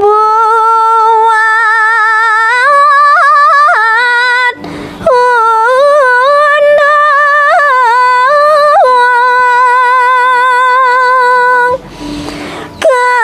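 A woman singing Balinese pupuh Sinom solo and unaccompanied, in long held notes with ornamented turns. She breaks off twice briefly, about four and a half seconds in and near the end.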